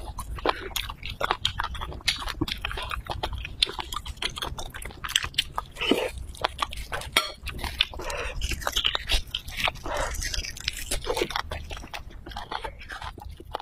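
Close-miked eating of spicy braised beef bone marrow: a dense run of wet mouth smacks, clicks and chewing.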